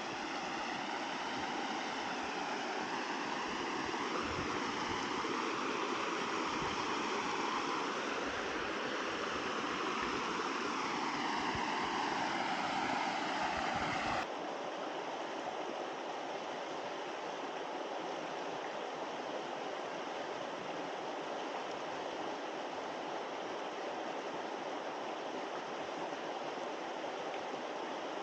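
Steady rush of a small stream splashing over rocks below a little cascade. About halfway through the sound changes abruptly to a slightly quieter, more even rush.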